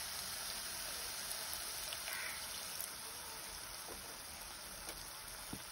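A pan of broccoli, tomato and onion sizzling and simmering with a steady hiss, a little water just added to it, with a couple of faint clicks.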